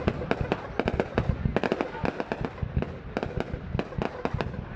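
Fireworks going off in a rapid, irregular barrage of sharp bangs and cracks, several a second.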